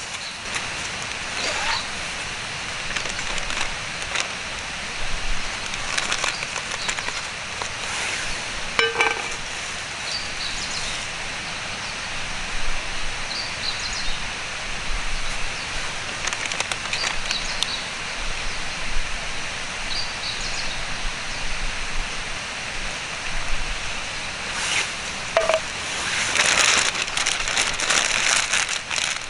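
Wood campfire crackling over a steady hiss, with short high chirps every few seconds.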